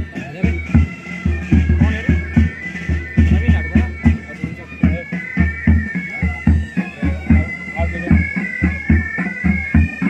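Pipe band playing: Highland bagpipes carry a march melody over their steady drone, with snare and bass drums beating a dense, regular marching rhythm.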